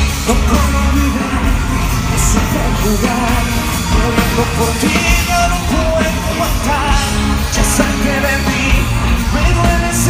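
Live band playing loud music with a singer's voice over it, heard from within the crowd.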